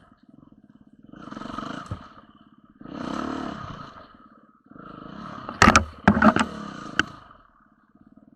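Enduro motorcycle engine idling with a fast even pulse, then revved three times, each surge a second or two long. Several sharp knocks and clatter come during the third and loudest rev.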